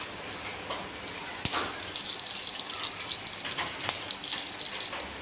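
Hot oil sizzling and crackling in a steel kadhai with cumin seeds, curry leaves and bay leaves during a tempering (phodni). The hiss grows louder about one and a half seconds in and cuts off sharply near the end.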